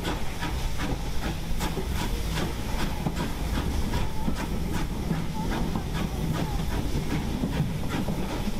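Steam locomotive on the move, with loud steady steam hiss from steam escaping around the engine, over a low running rumble and a regular beat of sharp clicks about two to three times a second.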